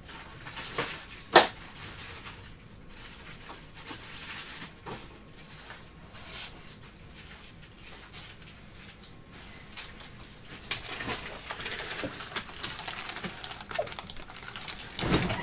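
Trading cards and plastic soft sleeves being handled, giving light clicks and rustling, with one sharp click about a second and a half in and denser rustling over the last few seconds.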